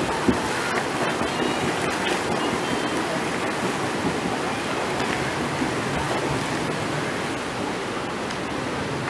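A swimmer's hard flutter kick churning and splashing the water during an all-out sprint: a steady rushing splash.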